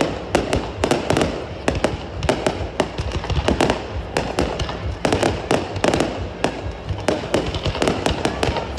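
Fireworks going off: a rapid, irregular series of bangs and pops, several a second, over a continuous noisy wash.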